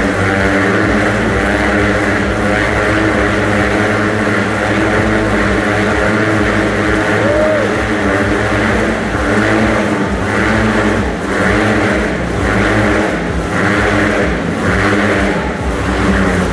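Motorcycle engines revving hard and steadily as the bikes loop inside a steel mesh globe of death. In the second half the sound swells and fades about once a second.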